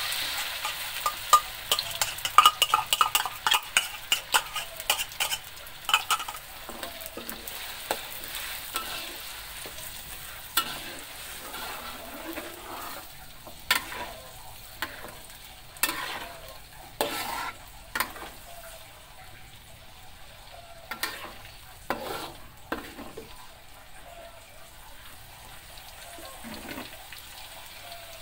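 Ground chili-and-shallot spice paste frying in hot oil in a wok, sizzling while a metal spatula stirs it, scraping and clinking against the pan. The clinks come thick and fast in the first several seconds, then as occasional scraping strokes over a steady sizzle.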